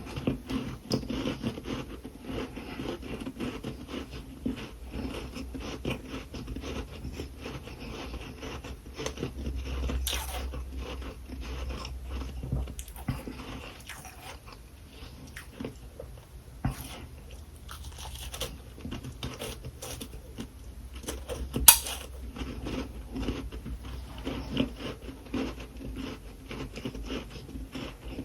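Close-up crunching and chewing of powdery freezer frost, a dense run of irregular crisp crackles with one sharper crack a little past two-thirds of the way through.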